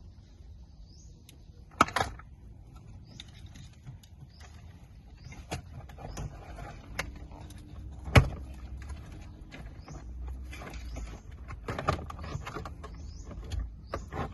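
Scattered sharp knocks and clicks, the loudest about two seconds in and about eight seconds in, over short bird chirps.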